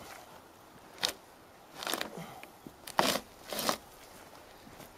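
Bark being peeled off a log with a long-handled flat blade: four short scraping strokes, the blade shearing bark from the wood.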